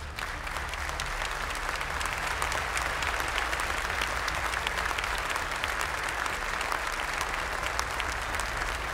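Audience applauding: many hands clapping in a dense, steady patter that swells up within the first second and holds.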